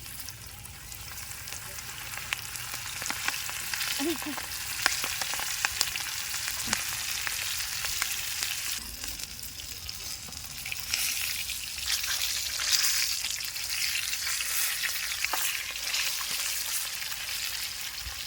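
Food frying in a hot pan: a steady sizzle with scattered sharp crackles and pops.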